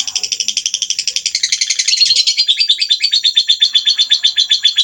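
Songbird giving a harsh, rapid rattling call, a 'tembakan kasar' burst of about a dozen dry notes a second. It grows louder and drops a little in pitch about two seconds in.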